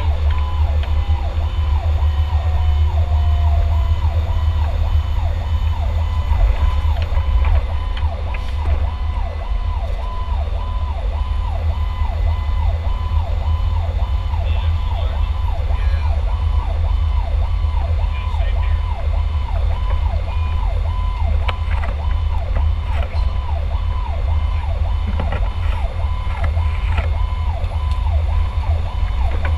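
Fire truck siren in a fast yelp, its pitch rising and falling about twice a second, heard from inside the truck's cab over a steady low drone of engine and road.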